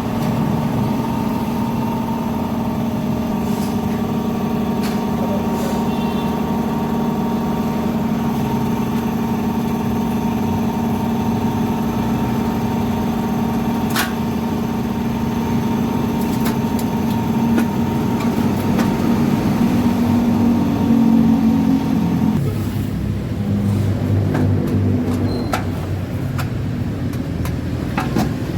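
A motor or engine running steadily with a constant hum, its sound shifting lower and rougher about 22 seconds in.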